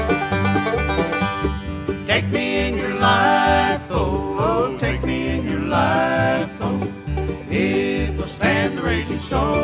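Bluegrass band playing an instrumental passage: banjo picking over guitar and a steady string-bass pulse, with a lead line sliding between notes above them several times.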